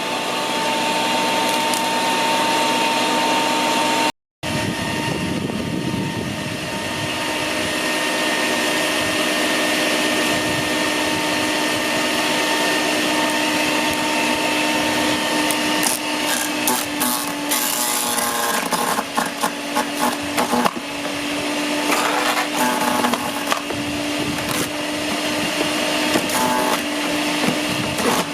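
Snow Joe CJ601E 14-amp electric wood chipper/shredder running steadily with a motor whine while it chews up brush and branches. From about halfway through come rapid cracks and snaps of wood being shredded. The sound cuts out for a moment about four seconds in.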